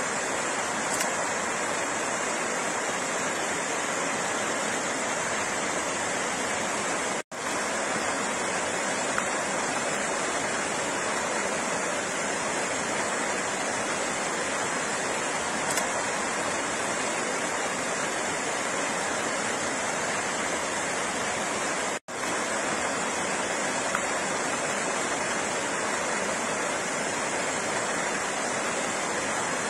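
Flowing water rushing steadily, with an even, unbroken sound. It cuts out for an instant twice, about seven and twenty-two seconds in.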